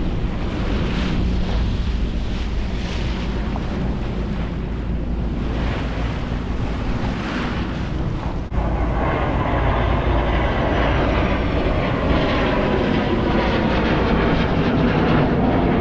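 Wind and sea noise, then after a sudden cut about halfway through, the steady drone of a small airplane's engine passing overhead.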